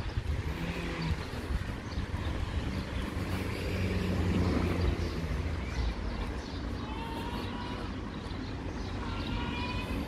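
Passing road traffic: a vehicle engine swells to its loudest about four seconds in and then fades, over a steady low traffic rumble.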